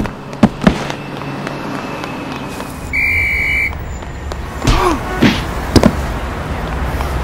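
Stock cartoon sound effects: two sharp knocks of a car door shutting within the first second, a short high whistle about three seconds in, then several more sharp hits over a low city-traffic rumble.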